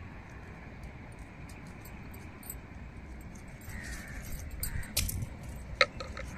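Knife scraping the scales off a pomfret, with glass bangles clinking and a few sharp clicks, the loudest about five and six seconds in, over a steady low rumble.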